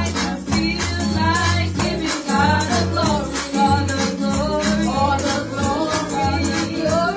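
Women singing a gospel worship song into microphones, amplified over backing music with held bass notes and a steady percussion beat.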